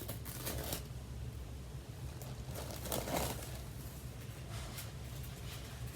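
Protective wrapping being peeled off a new MacBook Air, faint crinkling and rustling in short spells, the loudest about three seconds in.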